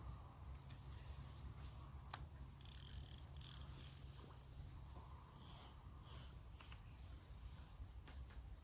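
Faint outdoor background with a low rumble, a few soft rustles, and a short high chirp about five seconds in.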